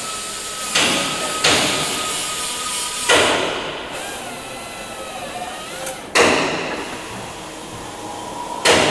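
Hammer blows on metal: five sharp strikes at uneven intervals, each ringing and echoing around a large hangar workshop.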